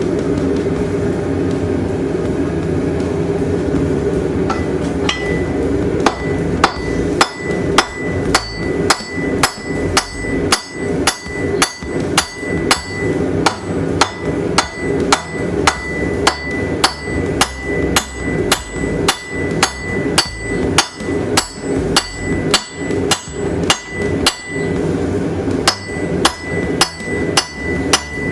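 Hand hammer forging a railroad spike on an anvil: steady blows at about two a second, each with a ringing note, starting about six seconds in. A steady rushing noise runs underneath.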